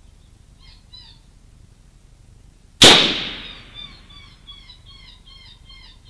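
A single .308 rifle shot from a SIG 716: a sharp crack about three seconds in, echoing away over about a second. A series of short high chirps, about three a second, goes on before and after the shot.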